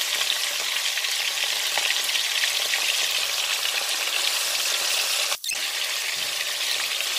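Chicken pieces frying in hot oil in a wok: a steady crackling sizzle while more raw pieces are added by hand. The sound cuts out for an instant about five seconds in.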